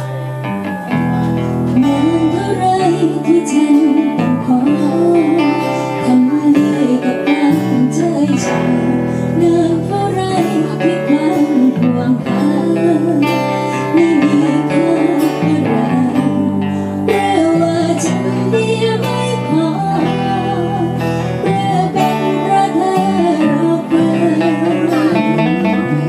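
Live acoustic band: a woman singing a slow ballad with vibrato over strummed acoustic guitars, a small guitar and a cajón.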